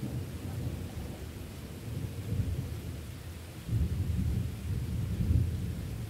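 Thunder rumbling over steady rain, the rumble swelling louder about two-thirds of the way in.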